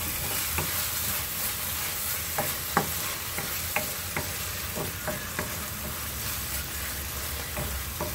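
A wooden spoon stirring and scraping an onion and tomato curry base around a non-stick wok, with irregular sharp clacks against the pan over a steady sizzle.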